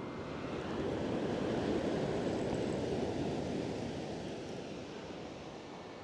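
Sea waves washing onto the shore: a rushing noise that builds over the first two seconds and slowly fades.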